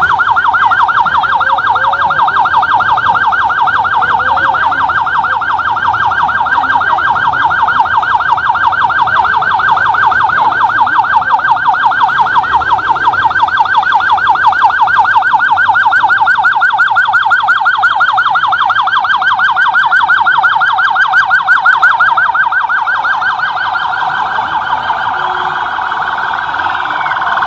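Electronic police siren sounding a fast yelp, rapidly warbling up and down without a break. It is loud and eases slightly near the end.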